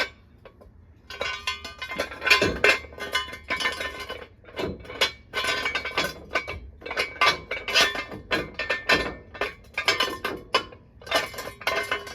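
Repeated metallic clinking and scraping in short strokes, about one or two a second, each with a ringing metal tone.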